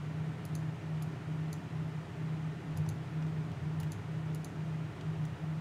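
Scattered light clicks of a computer mouse and keyboard, about eight in all, over a low steady hum.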